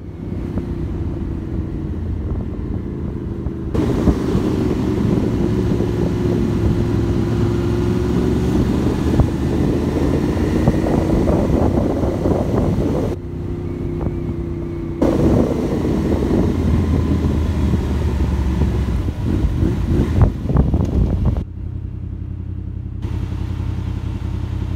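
Motorcycle engine heard from the rider's seat while riding, its pitch rising and falling as the revs change. Near the end it settles to a steadier, lower idle as the bike waits in stopped traffic.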